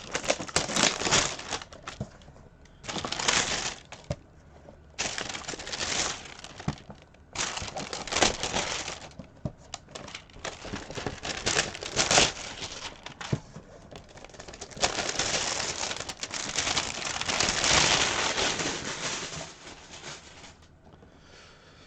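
Packaging being handled and unwrapped, crinkling in about six bursts of one to four seconds each, as a brick of Heroclix booster packs is opened.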